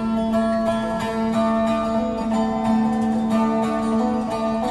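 Background music: a plucked string instrument, guitar-like, picks out a melody over a steadily held low note.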